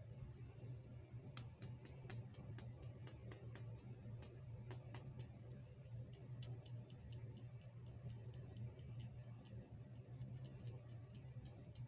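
Rapid, irregular series of light clicks and taps, a few a second, from small plastic toy accessories and their packaging being handled, over a faint steady low hum.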